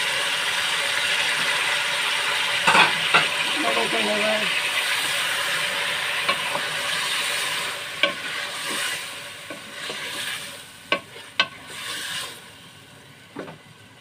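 Chicken, potato pieces and freshly added chopped tomatoes sizzling in hot oil in a metal pot while being stirred with a wooden spoon, which knocks against the pot several times. The sizzle dies down over the last few seconds.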